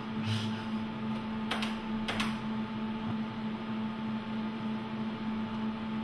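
Steady electrical hum of running equipment with a faint higher whine above it. Two brief soft noises come about one and a half and two seconds in.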